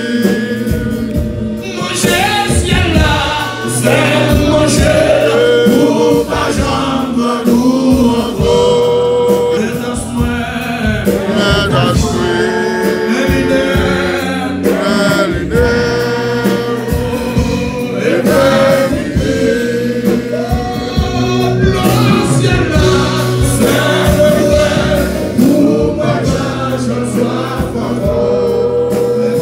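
Live gospel worship song sung in Haitian Creole: a male lead singer and a group of female backing singers on microphones, with band accompaniment.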